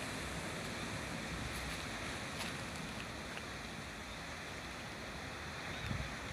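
Ocean surf washing steadily over a rocky shoreline, with wind buffeting the microphone in a few low bumps near the end.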